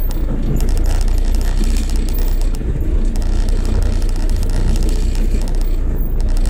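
Toyota car heard from inside the cabin while driving slowly: a steady low engine and road rumble with scattered light ticks over it.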